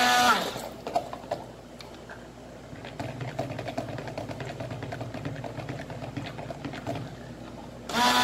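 Stick blender running with a loud steady whine in a stainless steel bowl of cosmetic cream, switched off just after the start and winding down. Quieter knocks and a low hum follow, and the blender whines on again for about a second near the end.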